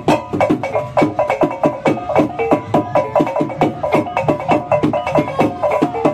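Background music with a quick, steady percussive beat, several strikes a second, over pitched notes.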